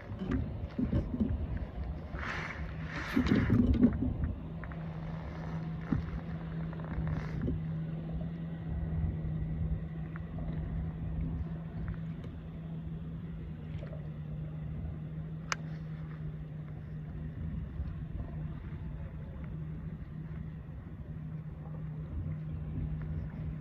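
A steady low motor hum over a rumble of wind and water noise, with a louder noisy burst about two to four seconds in and a single sharp click later on.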